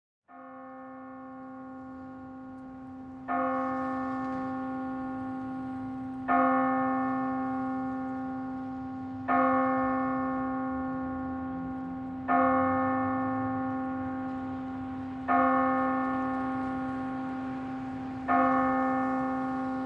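A single church bell tolling slowly. It fades in, then is struck about every three seconds, each strike ringing on and dying away before the next.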